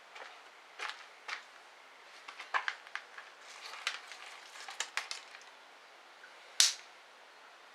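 Wood fire crackling in a small wood-burning stove: scattered snaps and pops, with one loud sharp pop about six and a half seconds in.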